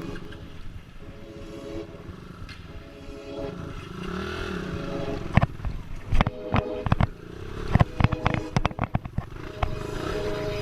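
Trail motorcycle engine running, its pitch rising and falling about four seconds in, followed by a dense run of sharp knocks and clatter.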